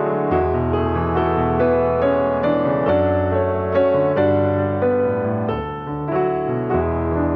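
Background instrumental piano music: a calm run of notes over held bass notes.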